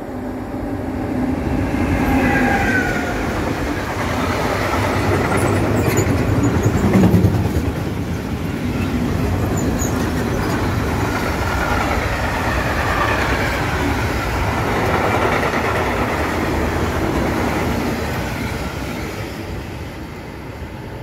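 Freight train hauled by an electric locomotive passing through a station without stopping: a continuous rumble of wheels on the rails that builds as the train arrives, is loudest about seven seconds in, and fades away near the end. A whine falls in pitch about two seconds in.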